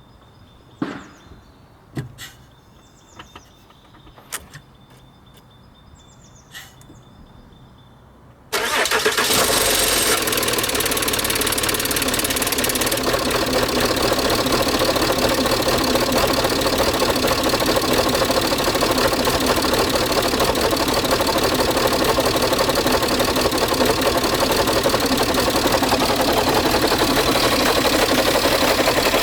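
A few sharp clicks and knocks, then about eight seconds in the Peugeot 607's 2.7 HDi V6 diesel engine starts and runs steadily at idle. The owner has filmed the car for a grinding noise.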